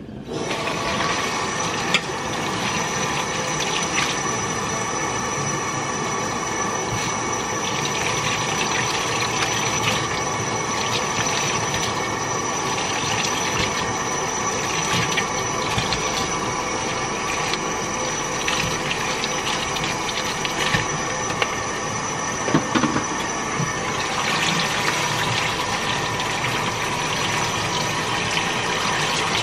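Kitchen tap running steadily into a stainless steel sink, the stream splashing over berries being rinsed in a plastic bowl, with a few light knocks of plastic.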